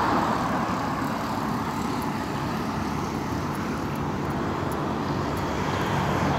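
Road traffic on a highway: a vehicle passing by and fading away at the start, then a steady traffic rumble.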